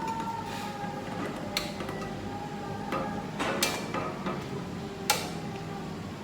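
A few sharp clicks and taps from handling an acoustic guitar while fitting new strings, the loudest about three and a half and five seconds in, over faint steady ringing tones.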